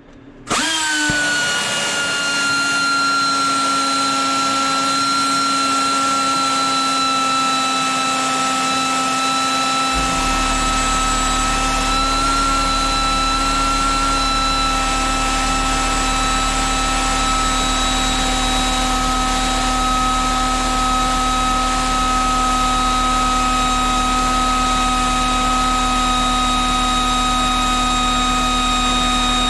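Pneumatic angle grinder running with a steady high whine. It starts about half a second in and its pitch settles within the first second. A steady low hum joins about ten seconds in.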